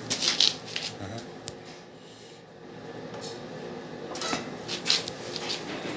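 Galvanized sheet-steel post cap being handled and turned over: scattered light clicks, taps and rubbing of thin metal, with a quieter stretch in the middle.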